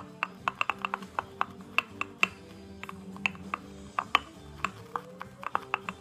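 Boar-bristle shaving brush whipped around inside a ceramic mug, building lather from puck soap: a quick, irregular run of wet clicks and taps, several a second. Rock music plays quietly underneath.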